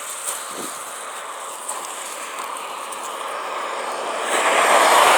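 Highway traffic noise, with a vehicle approaching and growing louder from about four seconds in as it passes.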